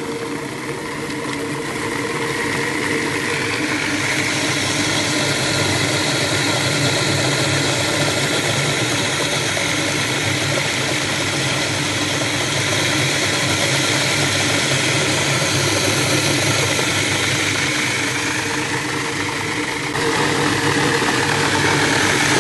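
Sammic CK-38V food processor's 8-quart emulsifier running at speed 3 (900 RPM), its blade churning a batch of product with a steady whir. It grows louder over the first few seconds and steps up again near the end.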